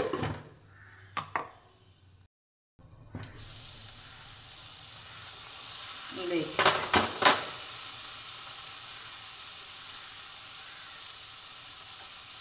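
Sprouted chickpeas sizzling steadily in a hot kadhai, with clinks from the pan's glass lid being handled at the start and a cluster of sharp utensil clinks against the pan about six to seven seconds in.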